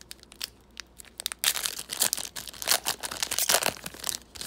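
A trading card pack's wrapper being torn open and crinkled by hand: a few sparse crackles, then a dense burst of crinkling and tearing from about a second and a half in until near the end.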